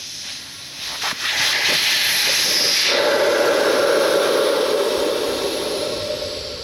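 Air rushing out of a Hayabusa motorcycle tyre through its open valve stem, the valve core taken out: a loud hiss with a couple of clicks about a second in, turning into a steady whistle about three seconds in, then slowly fading as the tyre deflates.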